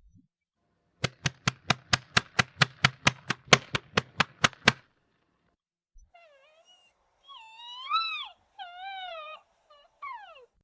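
A fast, even run of sharp clicks, about four or five a second for three and a half seconds. After a short pause, a cat meows four or five times, each call rising and falling in pitch.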